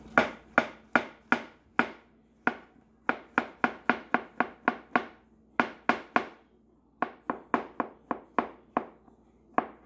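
Chef's knife slicing baby bella mushrooms thin on a cutting board: a run of sharp taps as the blade strikes the board, about three or four a second, in short runs with brief pauses between them.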